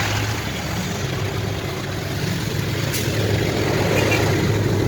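A vehicle's engine running steadily on the road, a low even hum under road and wind noise.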